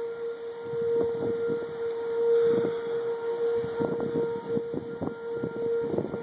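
Outdoor civil-defence warning siren holding one steady tone, sounding the tornado warning. Short, irregular low thumps come and go over it.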